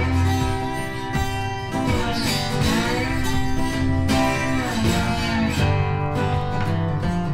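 Background music: acoustic guitar playing a country-style tune.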